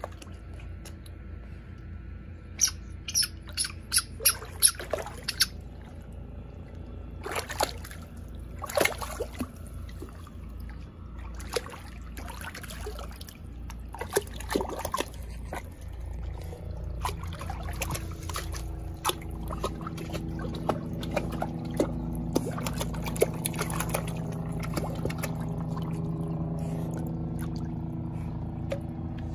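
Water splashing in a shallow plastic kiddie pool as a small dog paws at a ball: a quick run of sharp splashes a few seconds in, then scattered splashes and sloshing. A low steady hum underneath grows louder in the second half.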